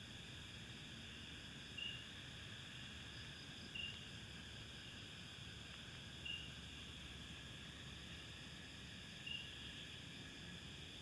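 Steady faint chorus of crickets and other insects, with one short, high chirp standing out four times, two to three seconds apart.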